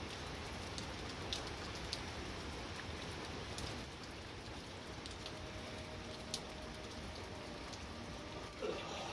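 Steady rain falling on trees and vegetation, with scattered single drops tapping close by.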